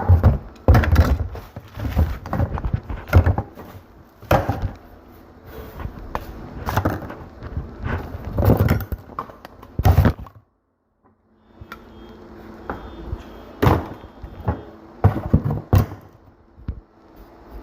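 Irregular knocks, thuds and clatters of objects being handled and set down, some sharp and loud. About ten seconds in the sound cuts out completely for about a second, and the knocks go on more sparsely over a faint steady hum.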